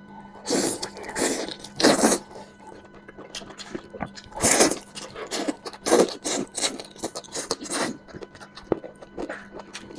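Close-up eating sounds of hand-grabbed mutton being torn and chewed. Irregular loud, noisy scraping bursts come with many quick wet smacking clicks between them.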